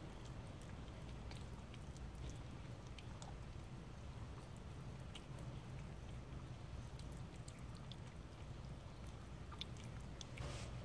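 Calico cat eating wet meat cat food: faint, irregular wet smacking and chewing clicks from its mouth and tongue, over a low steady hum.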